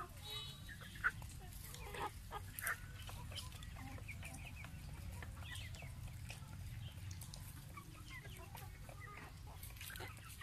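Chickens clucking in short, scattered calls as they forage, with a few sharp clicks, over a steady low rumble.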